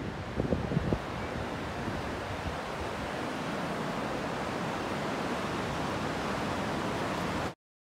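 Steady rushing wind noise on the microphone, with a few brief louder buffets about half a second to a second in; the sound cuts off suddenly near the end.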